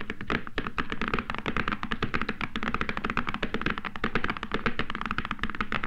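Cartoon sound effect of a team of horses' hooves clattering as they pull a coach away: a fast, dense run of taps, about a dozen a second, without a break.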